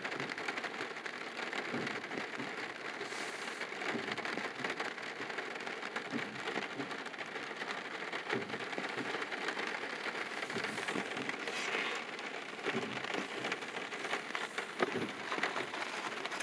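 Rain pattering on a car's roof and windshield, heard from inside the car: a steady patter of many small drops.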